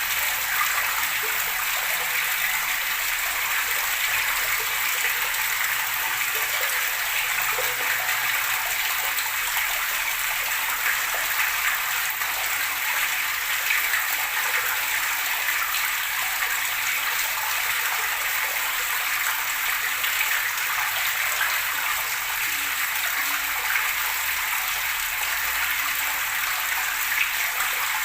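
Flowing water gurgling and rushing steadily, with no break or change.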